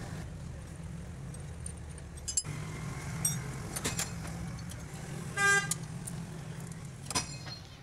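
An engine running steadily with a low hum, with a few sharp metallic clinks of tools. A short vehicle horn toot about five and a half seconds in is the loudest sound.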